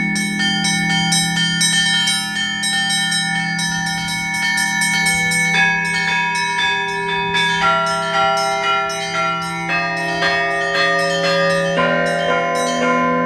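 Russian Orthodox church bells rung in a continuous peal: quick repeated strokes on small high-pitched bells over middle bells, whose pitches change partway through, with a steady low ringing hum underneath.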